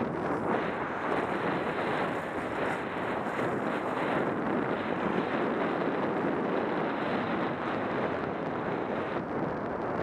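Steady rush of wind over an action camera's microphone as the skier moves downhill, mixed with the hiss of skis sliding on packed snow.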